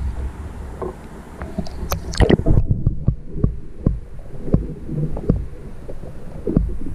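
Stream water heard through an underwater camera housing: a low rumble with scattered clicks and knocks, and a dense cluster of sharper clicks about two seconds in.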